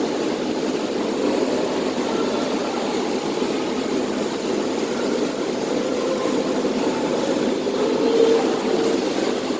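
Steady droning noise filling an indoor pool hall, even throughout with no distinct events.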